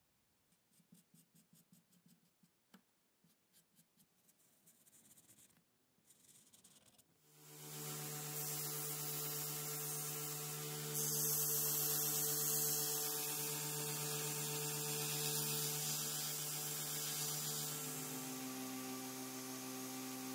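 Belt grinder motor starting about a third of the way in and running with a steady hum. From about halfway, a sanding-belt cleaning block is pressed against the moving abrasive belt to clear it, adding a loud bright hiss. Before the motor starts there are faint, evenly spaced rubbing strokes.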